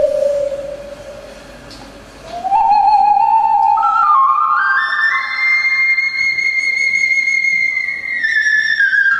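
Solo ocarina playing a slow melody. A held low note fades away, then the player slides up and climbs in steps to a high note held for about three seconds before stepping back down.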